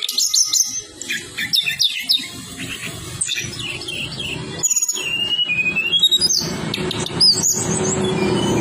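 Tledekan songbird singing a fast, varied run of sharp chirps, short gliding whistles and trills. A low steady rumble rises underneath in the last few seconds.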